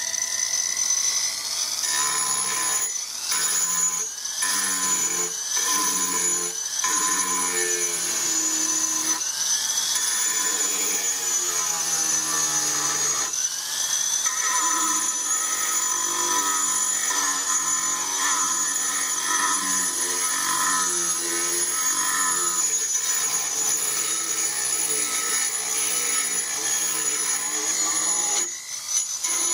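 Foredom flexible-shaft rotary tool running, its motor whining as the cutter grinds into the walnut of a rifle stock's wrist. Its pitch glides up and down as the foot pedal changes the speed, with several short breaks in the first few seconds.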